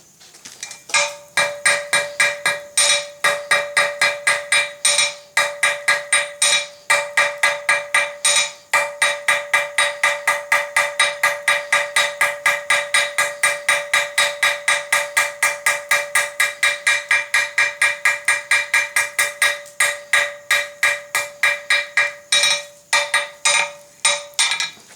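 Blacksmith's hammer striking hot 6mm round steel bar on an anvil in quick, steady blows, about four a second, with a ringing tone that holds through the blows. The smith is knocking the corners off a square taper to round it back out. The blows start about a second in and stop just before the end.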